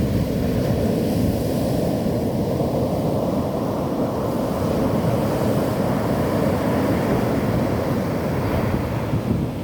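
Ocean surf breaking on a beach: a steady rushing, churning wash of waves.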